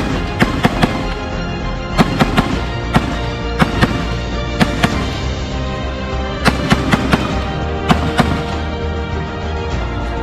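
Gunshots at a shooting range: many sharp shots at irregular intervals, often two or three in quick succession, with music playing underneath.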